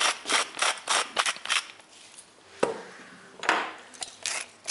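Hand-twisted spice mill grinding over a pot: a quick series of crunchy, ratcheting clicks at about three a second, a pause with a single sharp knock, then more grinding strokes.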